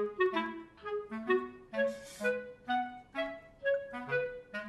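Background music: a quick melody of short, separate notes, moving up and down in steps.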